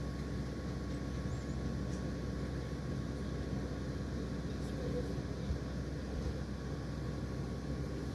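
Generator engine running steadily with a constant low hum.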